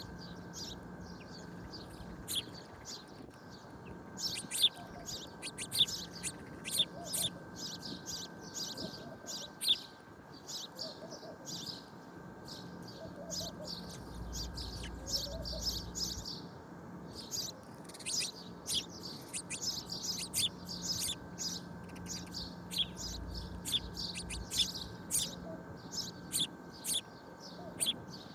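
Many small birds chirping: a dense, continuous run of short, high chirps, with a faint steady hum underneath.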